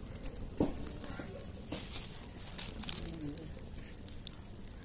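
Open wood fire crackling under a spit-roasted whole chicken, with scattered sharp pops, the loudest about half a second in.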